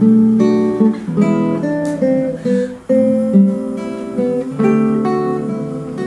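Nylon-string classical guitar played solo, picked notes and chords of the song's closing instrumental passage.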